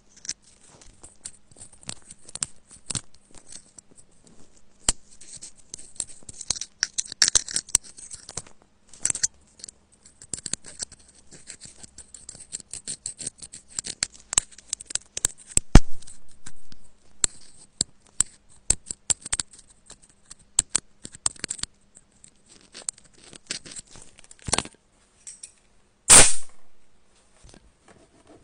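Thin metal pick scraping and clicking inside a clogged iPhone Lightning charging port, digging out packed lint and grime: irregular small scratches and ticks, with a few louder clicks, the loudest near the end.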